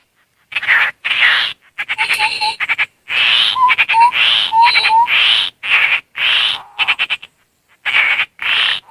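Tepus landak babbler calls mixed with mouth whistling: harsh rasping chatter in repeated half-second bursts, with short low whistled notes sliding upward inside several of them. It is played as a lure to call wild birds in.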